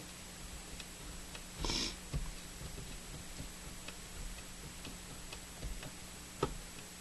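Scattered light clicks and taps of a radio's dial pointer and tuning mechanism being handled and adjusted, with a brief rustle about two seconds in and a sharper click near the end, over a steady low hum.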